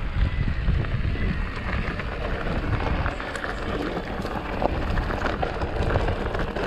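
Polygon Siskiu T7 full-suspension mountain bike rolling downhill over loose rocky gravel: knobby tyres crunching on stones, with a steady stream of small clicks and knocks from the bike over the rough ground. Wind buffets the microphone throughout.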